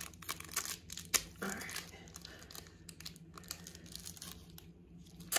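Black blind bag crinkling and tearing as it is opened by hand: a run of small crackles with a sharp snap a little over a second in, fading near the end.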